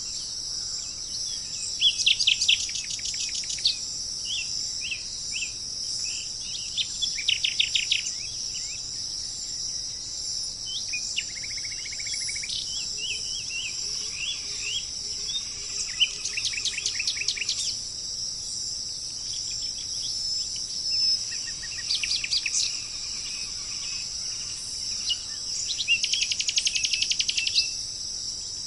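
Songbirds singing in short, fast trills of rapidly repeated notes every few seconds, with scattered single chirps, over a steady high-pitched insect chorus.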